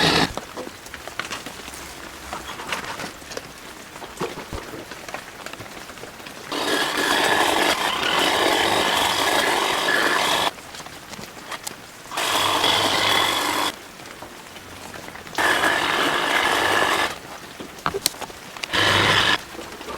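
Power hedge trimmer running in bursts: one long run of about four seconds, then shorter runs of a second or two, starting and stopping sharply. Rain patters steadily between the runs.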